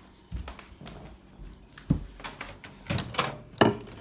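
Scattered knocks and clunks of objects being handled, the sharpest about two seconds in and a cluster near the end.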